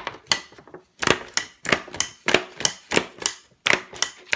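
A stapler being pressed again and again through a piece of card as fast as possible, giving sharp clicks at about three a second.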